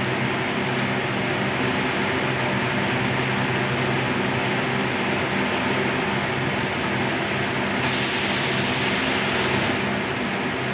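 Wireless radio set hissing with static and a faint low hum between transmissions, with a sharper, higher hiss for about two seconds about eight seconds in.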